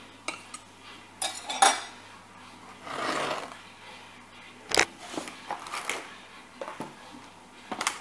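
A metal utensil clinks against a glass baking dish and the dish knocks on a wooden chopping board: a scatter of sharp clicks and knocks, loudest about one and a half seconds in and again near five seconds, with a short scraping sound about three seconds in.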